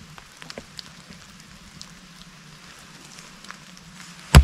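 Steady rain with scattered drops ticking, then near the end a single sharp chop as a hatchet is brought down on a piece of wood standing on a tree stump.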